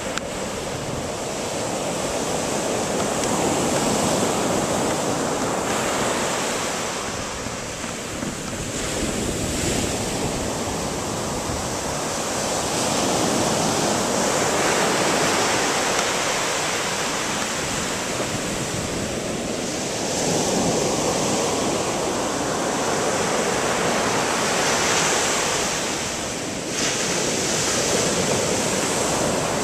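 Ocean surf breaking on a sandy beach: a continuous rushing wash that swells and eases every few seconds as waves break and run up the sand.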